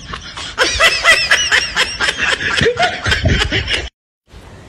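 High-pitched laughter in quick rapid bursts that cuts off abruptly about four seconds in.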